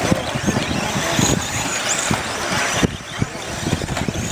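1/10-scale radio-controlled stadium trucks racing on a dirt track: a steady noisy mix of motors and tyres, with many short low thumps and a brief high rising whine about two seconds in.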